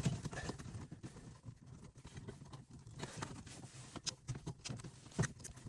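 Scattered small clicks and knocks of hands working at plastic wiring connectors behind a car dashboard, unplugging the tape deck's wiring.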